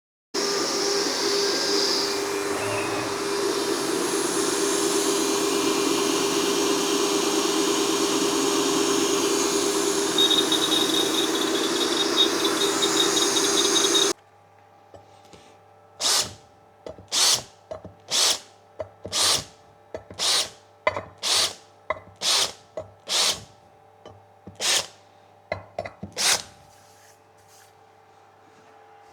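CNC spindle milling an aluminium plate: a steady running noise with a hum and a high hiss, which cuts off suddenly about halfway through. It is followed by about a dozen short hissing bursts, roughly one a second.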